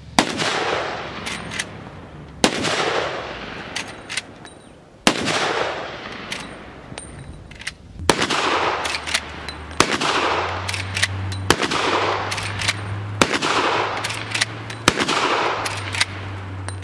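A Henry Side Gate lever-action rifle in .45-70 Government firing about eight shots, roughly one every two seconds, each shot trailing off in a long rolling echo. Smaller mechanical clicks between the shots are the lever being worked to chamber the next round.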